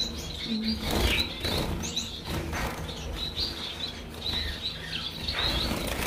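Bengalese finches fluttering around a wire cage, wings flapping, with many short high chirps repeating throughout.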